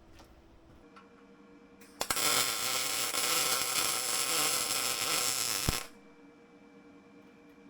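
Electric arc welding a steel rack bracket: about four seconds of steady welding crackle and hiss, starting sharply about two seconds in and cutting off near six seconds. A steady electrical hum sounds before and after the weld.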